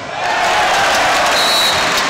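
Arena crowd cheering and shouting at the end of a volleyball rally, swelling about a quarter second in and holding. A short high whistle sounds near the end.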